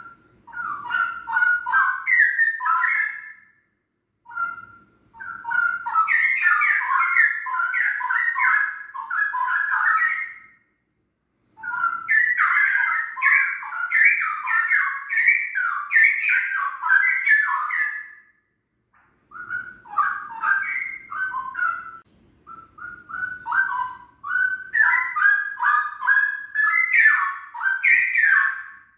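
A caged songbird singing in long runs of quick, rapidly changing notes, five runs with short pauses between them.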